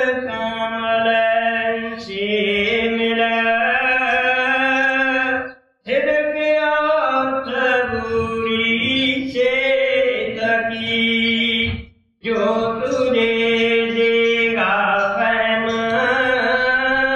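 A solo male voice chanting lines of a devotional hymn in long, held melodic phrases. There are three phrases, broken by short pauses about six and twelve seconds in.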